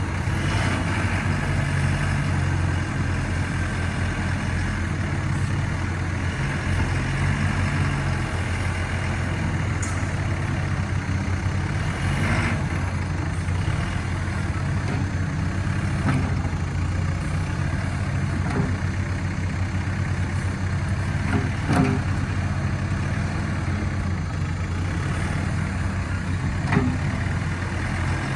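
JCB 3CX backhoe loader's four-cylinder diesel engine idling steadily with a deep, even hum. A few sharp clicks or knocks sound over it.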